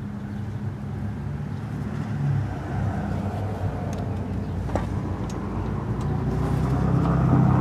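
A motor vehicle engine running nearby, a low steady rumble that grows louder toward the end, with a few light metallic clicks of hand tools.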